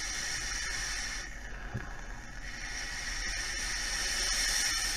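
Long draw on an OBS Engine RTA atomizer with a single coil fired at 30 watts: a steady hiss of air pulled through the airflow and the coil sizzling. It dips briefly after about a second, then grows louder again.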